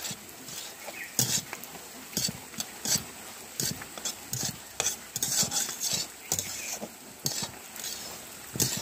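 Semolina upma being stirred in a pan on the heat: a utensil scrapes and knocks against the pan in short, irregular strokes over a faint sizzle. This is the last couple of minutes of stirring before the dish comes off the heat.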